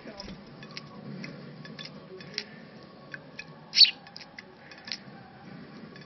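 Young house sparrow's beak pecking and tapping on a wet china plate: a scattered series of sharp ticks, the loudest a little under four seconds in.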